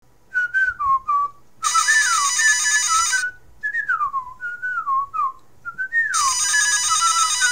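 An electronic telephone ringing in two bursts of about a second and a half each, while someone whistles a tune with sliding notes.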